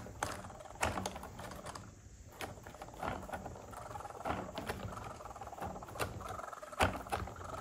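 Clockwork mechanism of an antique cat automaton running as the mother cat rocks her baby's cradle: a run of irregular clicks and ticks over a faint steady whir.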